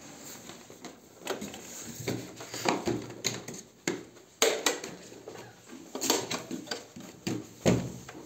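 Hard plastic clicking, knocking and rustling as a Jio Fiber router's casing and its clip-on stand are handled, in irregular sharp knocks a second or so apart.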